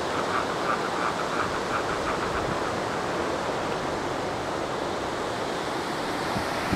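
Steady rush of surf and wind on an open coastal hilltop, with a faint, rapidly pulsing high sound during the first two seconds or so.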